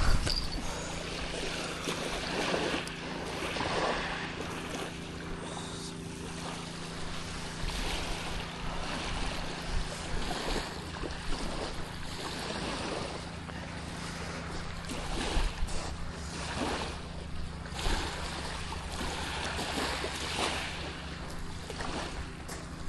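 Water lapping and wind on the microphone, with irregular small swells and splashes over a steady low hum.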